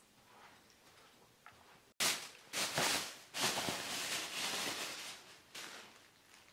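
Thin plastic shopping bag crinkling and rustling while being handled and DVD cases are taken out of it. It starts suddenly about two seconds in.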